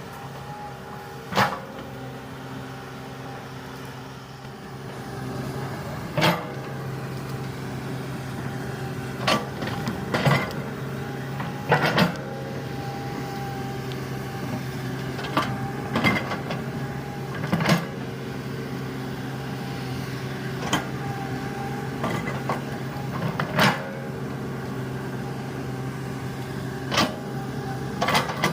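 Komatsu hydraulic excavator engine running steadily under work, with sharp knocks and clunks every few seconds from the machine as it digs and shifts soil.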